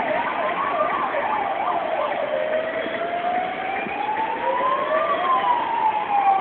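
Emergency vehicle sirens: slow wails rising and falling in pitch, overlapping one another, with a fast warbling yelp over them during the first two seconds.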